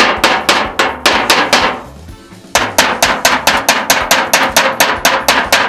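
Hammer striking a metal punch into the end of a steel 18-litre can, punching a hole through the tin: rapid, ringing metal clanks about five a second, with a brief pause about two seconds in before the hammering resumes.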